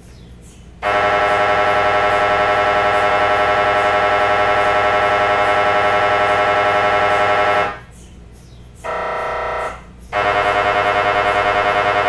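MRI scanner running a scan sequence: a loud electronic buzz pulsing rapidly and evenly starts about a second in and runs for some seven seconds. It stops, a shorter, quieter tone sounds for under a second, and the loud pulsing buzz resumes near the end.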